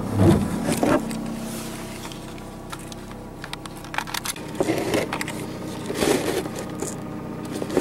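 Camera being handled and shifted on a car dashboard: irregular knocks, clicks and rubbing scrapes right at the microphone, the loudest near the start and again a few seconds in, over the steady hum of the running car.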